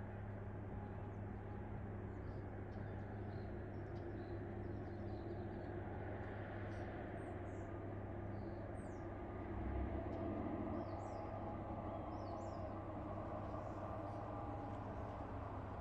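A steady low mechanical hum, with a brief swell about ten seconds in, and faint, scattered high chirps like birds.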